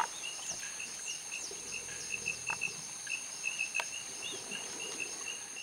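Tropical forest insects and birds: a steady high insect drone and a short chirping note repeated about three times a second, with a few quick falling bird chirps and two or three sharp knocks.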